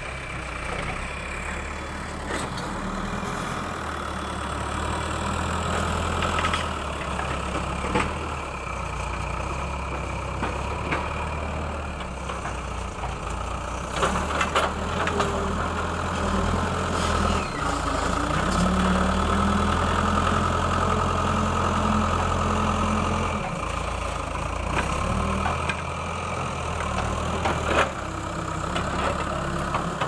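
Diesel engine of a Tata TH76 backhoe loader running steadily while it works, louder for a few seconds past the middle, with a few sharp knocks scattered through.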